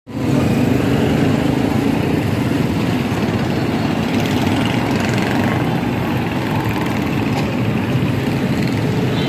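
Street traffic: small motorcycle and motorized tricycle engines running steadily.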